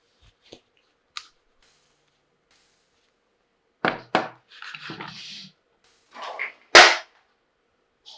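Small hard plastic toy tea-set pieces being handled: a few light clicks, then two sharp knocks about four seconds in, a brief rustle, and one loud clack near seven seconds.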